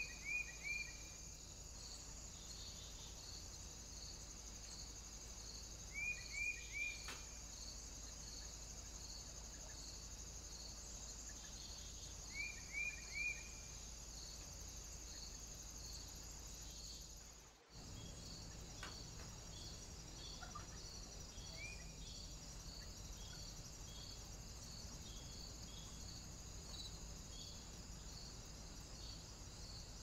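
Steady chirring of insects such as crickets, with a regular pulsed chirp. A bird's call of three quick falling notes comes three times in the first half and once more later. The sound cuts out briefly about two-thirds of the way through.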